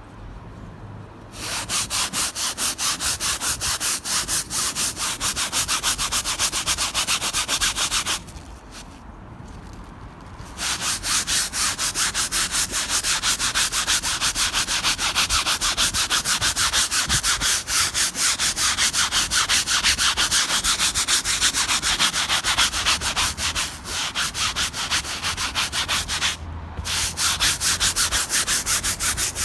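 A stiff-bristled hand brush scrubbing wet, foamy cleaner into a convertible's fabric soft top in fast back-and-forth strokes. The scrubbing stops for about two seconds after roughly eight seconds and briefly again near the end.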